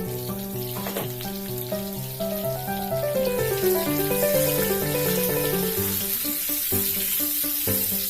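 Water running from a tap into a sink, under background music with a steady rhythmic melody.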